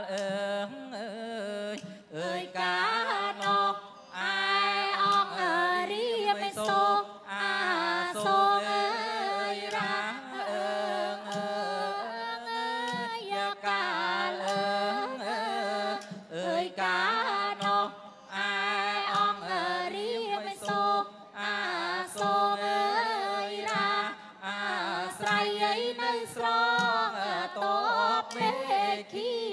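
Traditional Khmer classical dance accompaniment music: a wavering, ornamented melody line over a steady low drone, with short percussive strikes.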